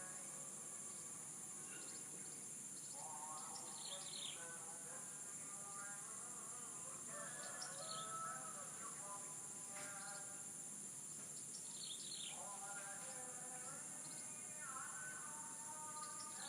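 Roosters crowing several times over a steady high-pitched insect drone, with short falling chirps from small birds in between.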